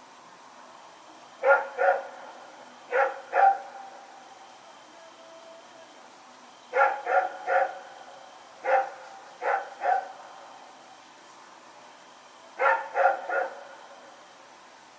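A Belgian Malinois barking in clusters of two or three barks with pauses of a few seconds between them. Each bark trails off in a short echo over a faint steady hiss.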